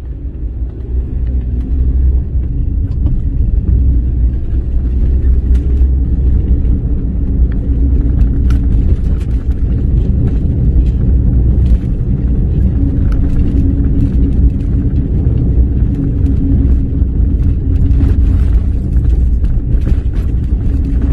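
Car driving, heard from inside the cabin: a steady low engine and road rumble that grows louder over the first two seconds as it picks up speed, with scattered light clicks.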